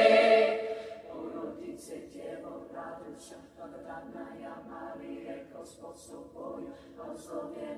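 High school concert choir singing a cappella in Church Slavonic: a loud full chord falls away about a second in, and the choir goes on singing softly, with hissing 's' consonants standing out.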